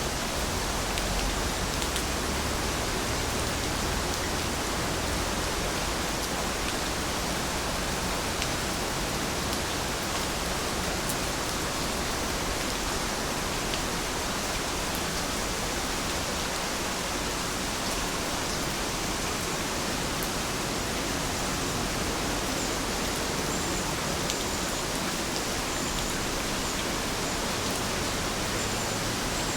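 Steady rain falling, an even hiss of water with occasional sharper drop ticks. In the last several seconds a faint, high, repeated chirping joins in.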